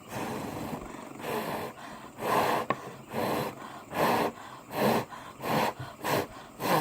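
A person breathing out in repeated short puffs, about nine of them, coming a little faster towards the end, with one sharp click near the middle.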